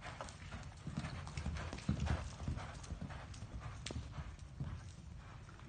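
A horse's hooves clip-clopping: an irregular run of thuds and clicks, loudest about two seconds in.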